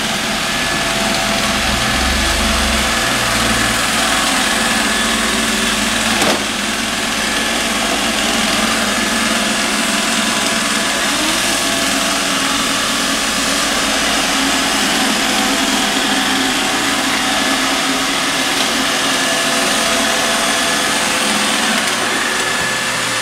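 iRobot Roomba robot vacuum running on a hardwood floor: a steady whir of its vacuum motor and brushes, with one brief knock about six seconds in.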